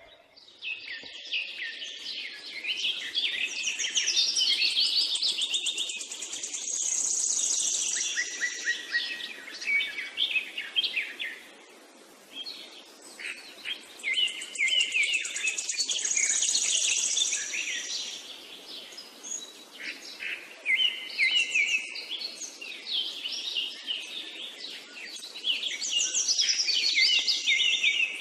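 Birdsong: a dense chorus of high chirps and trills from several birds, easing off briefly about halfway through before picking up again.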